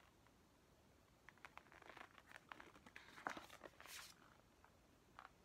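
Paper posters being handled and unfolded: faint crinkling and rustling with small clicks, starting about a second in and dying away after about four seconds.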